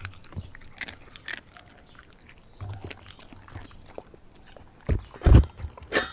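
Dog chewing and crunching raw meat and a raw chicken foot, with scattered crisp crunches and a few louder low thumps about five seconds in.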